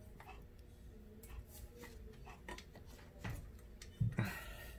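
Faint scattered clicks and taps of a hand tool and rifle parts being handled while the sling swivel adapter is fitted, with one louder knock about four seconds in.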